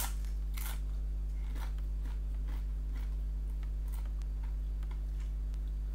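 Close-up eating sounds: a crisp bite into flatbread right at the start, then chewing with irregular small crunches and crackles. A steady low hum runs underneath.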